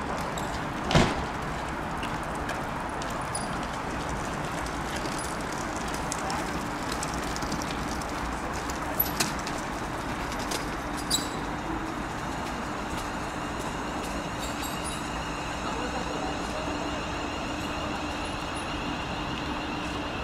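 Steady vehicle noise with an engine hum that grows in from about halfway. A sharp knock about a second in and a few clicks around the middle.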